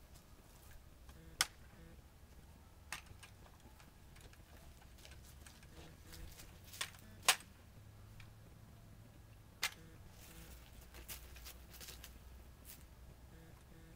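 Drill rifle being caught and handled while it is spun and tossed: about five sharp smacks, a few seconds apart, with the loudest two in quick succession about halfway through.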